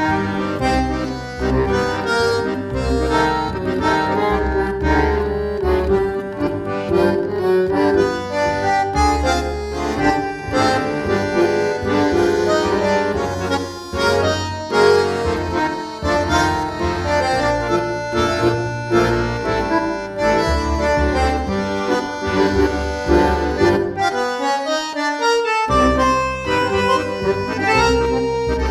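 Dance music led by an accordion over bass and percussion. Near the end the low end drops out for a moment, then comes back.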